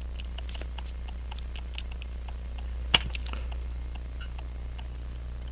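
Faint, irregular small clicks of tools and parts handling a pocket watch movement as its plates are taken off, with one sharper click about three seconds in, over a steady low hum.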